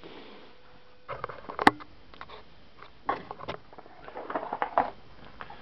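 A few clusters of short clicks, knocks and rattles over a low background, with one sharp click about a second and a half in; the chainsaw engine is not running.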